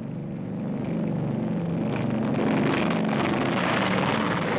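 Heavy piston aircraft engines growing louder over the first two seconds, then running steadily at full power: a B-29 bomber's four radial engines on the takeoff run.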